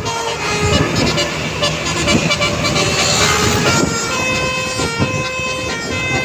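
Telolet bus horn playing a tune: a quick run of short notes at changing pitches, clearest in the second half, over vehicle noise.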